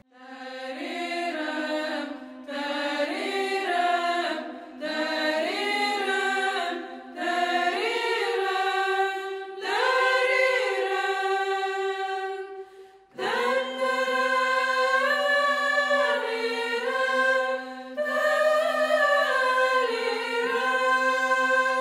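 Orthodox church chant sung a cappella by a choir, a melody over a steady held drone note, in phrases broken by short pauses for breath.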